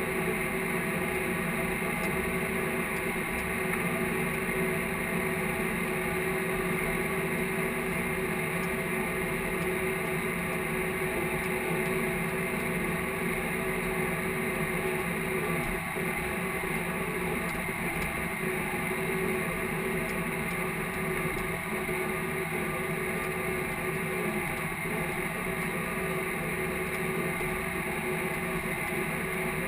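Case IH tractor's diesel engine running steadily under load while pulling a field cultivator, heard from inside the cab as an even drone with several steady tones.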